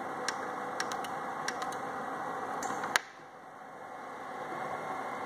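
Light clicks of an oscilloscope's front-panel push buttons being pressed, several in the first two seconds, then a sharper click about three seconds in, over a steady background hum.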